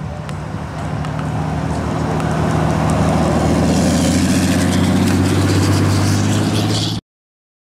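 Lifted pickup truck's engine running as it drives past, the low engine note growing louder as the truck approaches and passes close by. The sound cuts off abruptly near the end.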